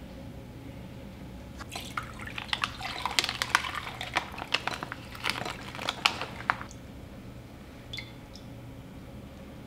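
Tofu-noodle packing water poured from the pack through a metal mesh strainer into a glass bowl: a quick run of small splashes and drips that starts a couple of seconds in and lasts about five seconds.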